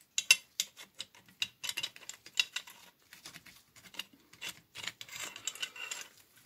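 Irregular sharp metal clicks and taps as M1 carbine parts are handled and fitted back together during reassembly, with some scraping of metal in the last second or so.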